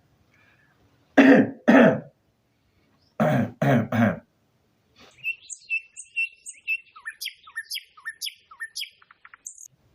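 A person coughs and clears their throat in two short double bursts. Then birds chirp for the last few seconds, with quick high notes, many falling in pitch.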